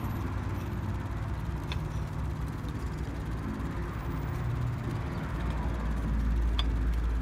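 Low, steady rumble of a motor vehicle's engine running nearby, growing louder about five seconds in, with a couple of faint clicks of table knives against china plates.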